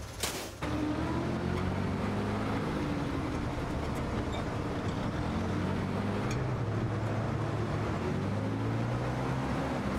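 Old Praga RN truck engine catching with a short burst about half a second in, then running steadily, its pitch rising and falling as the truck drives off over cobbles.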